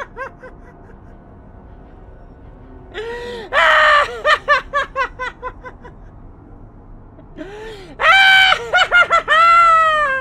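High-pitched theatrical cackling laughter in two long bouts, each opening with a sharp in-breath and a held shriek. The shriek then breaks into quick 'ha-ha-ha' pulses that fall in pitch. The tail of an earlier bout fades out at the very start.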